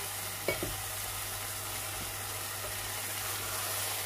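Chicken korma with onion paste sizzling as it is fried (bhuna) and stirred in a non-stick pot, with a steady hiss. A single knock comes about half a second in.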